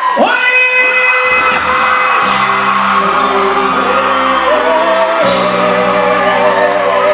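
Live band music: sustained keyboard chords, with a bass line coming in about a second in, and a wavering held melody line over them in the second half.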